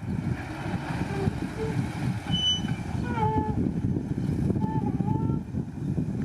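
Heavy earthmoving machinery, dump trucks and a bulldozer, running with a steady low rumble and wind buffeting the microphone. A few short high-pitched squeals or calls sound about halfway through.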